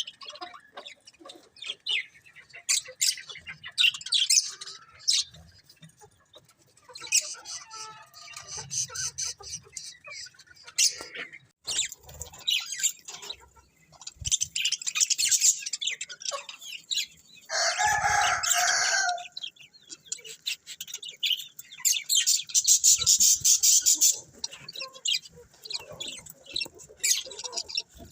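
Budgerigars chirping and chattering in quick, high-pitched trills and twitters, with one louder, harsher call about eighteen seconds in.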